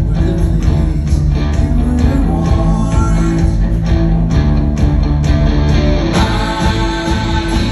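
Live rock band playing electric guitars and drums, loud, with steady drum hits under held guitar chords; the music moves into a new section about six seconds in.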